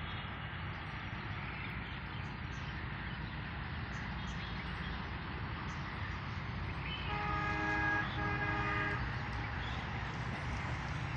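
Train horn sounding twice about seven seconds in, two steady blasts of about a second each with a brief break between, over a steady low rumble.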